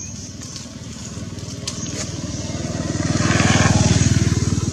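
An engine running with an even, rapid low pulse, growing louder to a peak about three to four seconds in and then easing a little, as of a motor vehicle passing close by.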